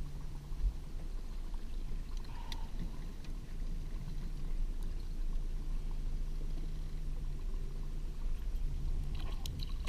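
Boat motor running steadily at trolling speed, a low hum under water splashing at the hull as a small fish is reeled up to the surface.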